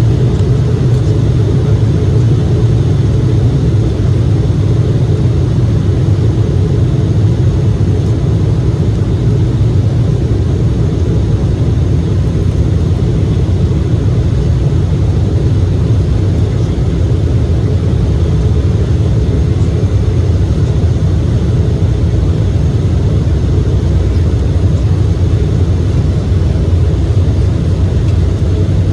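Steady jet engine and airflow noise inside the cabin of an Embraer E-175 airliner, with its GE CF34-8E turbofans running. It is a loud, even drone, low-pitched, holding level throughout.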